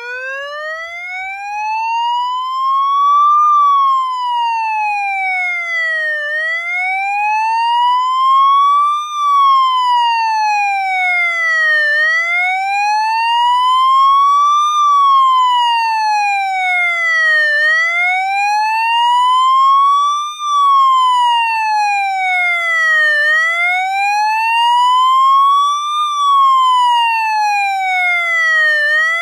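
Police siren sounding a slow wail, its pitch rising and falling smoothly about five times, each rise-and-fall taking a little under six seconds.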